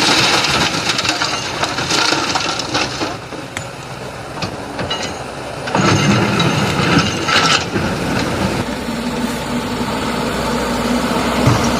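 Diesel engine of an excavator or dump truck running while sand and stones are poured into a steel dump-truck bed, two rattling, crunching pours of load, the second starting about six seconds in. After that the engine runs on steadily.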